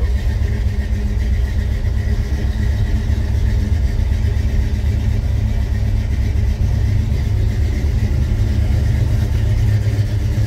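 A 351 V8 with a four-barrel carburetor idling steadily, already warm, heard from inside the cab.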